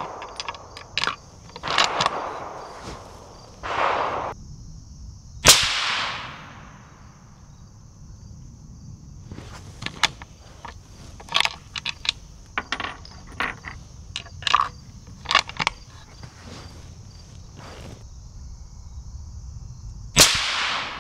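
Two suppressed rifle shots from a Tikka T3x bolt-action rifle chambered in 7 PRC-W and fitted with a Dead Air Nomad LTi suppressor: a sharp crack with a short ringing echo about five seconds in, and another near the end. Between the shots come scattered metallic clicks and knocks as the rifle is handled.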